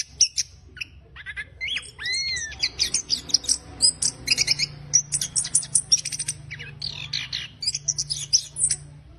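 Chestnut-capped thrush singing a rough, rapid twittering song of dense chattering notes, with two slurred arching whistles about two seconds in.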